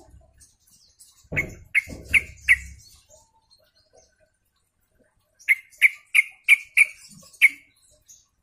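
Yellow-vented bulbul (trucukan) calling in two bursts of short, sharp chirps, four in quick succession about a second and a half in and six more near the end. A couple of dull low thumps come under the first burst.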